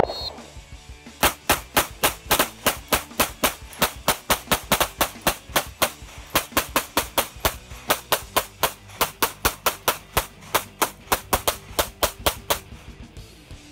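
Handgun fire: one shot, then a long, rapid string of shots at about four a second that stops about a second before the end.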